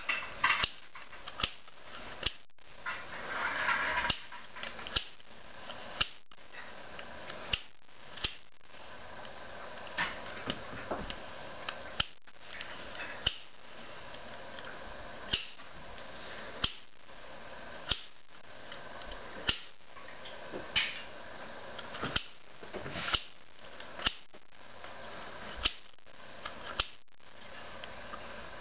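Plastic rainbow ball puzzle being twisted by hand, its turning sections clicking sharply and irregularly, roughly one or two clicks a second, over a steady hiss. A short rustle comes about four seconds in.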